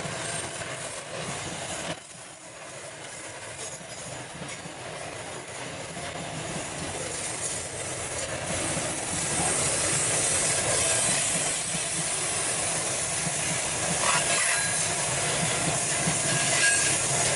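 A loaded freight train's boxcars and hopper wagons rolling past close by, their steel wheels running along the rails. The sound dips about two seconds in, then grows louder and holds steady.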